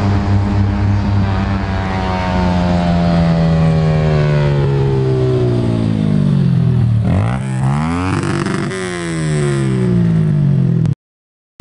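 Yamaha YBR 125's single-cylinder four-stroke engine through a Roncar Aluminium RS aftermarket exhaust. The engine note falls steadily in pitch for about seven seconds, then dips and climbs sharply a few times as the revs drop and pick up again. The sound cuts off abruptly near the end.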